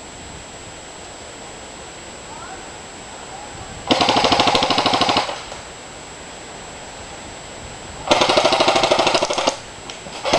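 Airsoft gun firing on full auto in two bursts of rapid, evenly spaced shots, each lasting a little over a second; a third burst begins at the very end.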